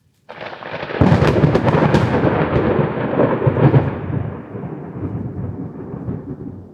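A clap of thunder: a sudden onset, a sharp crackling crack about a second in, then a loud low rumble that slowly fades away over the last few seconds.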